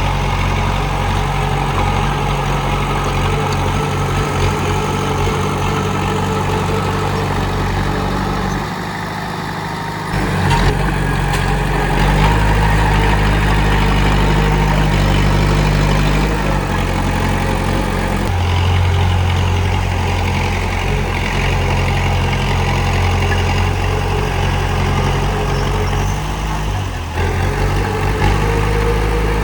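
Komatsu D31P bulldozer's diesel engine running steadily, its load shifting: it drops back briefly about nine seconds in, then comes up stronger again.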